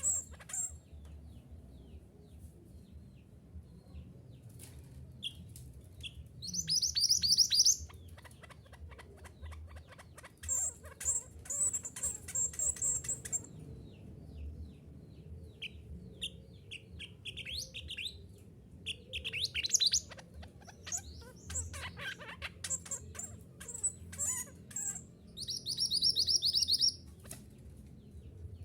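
A mantenan gunung songbird singing: bursts of rapid, high trilled notes lasting a second or two each, about four of them, with scattered short chirps between, over a faint steady low hum.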